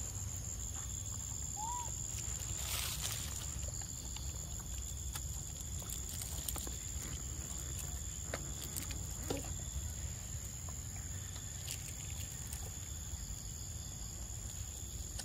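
Outdoor background: a steady high-pitched whine over a low rumble, with one short chirp about two seconds in and a few faint clicks.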